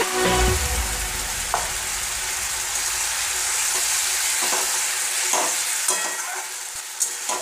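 Thick spiced potato curry sizzling in a metal kadai while a steel slotted spatula stirs it, with a few scrapes and taps of the spatula against the pan.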